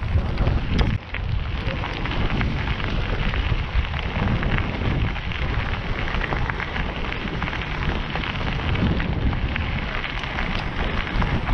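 Bicycle tyres rolling over a loose gravel trail, a steady crunching crackle with wind buffeting the microphone.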